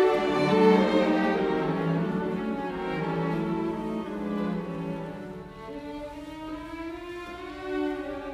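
Background music of bowed strings, violin and cello, playing slow held notes that grow quieter through the middle.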